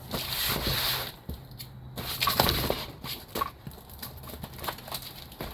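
Plastic parcel wrapping being handled and opened, rustling and crinkling, with scattered knocks and clicks.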